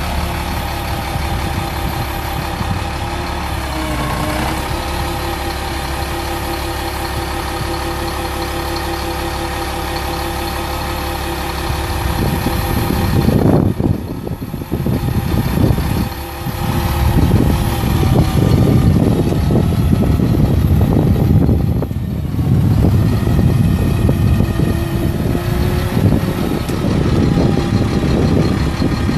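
Caterpillar 3126 inline-six turbo diesel running steadily to power a bucket truck's boom hydraulics, dipping briefly in pitch about four seconds in. From about twelve seconds in, a louder, irregular rumble comes and goes over the engine.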